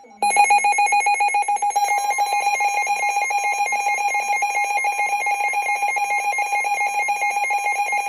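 Emergency alert tone heralding a Special Marine Warning: a loud, rapidly pulsing alarm tone that starts abruptly, joined about two seconds in by a steady higher tone.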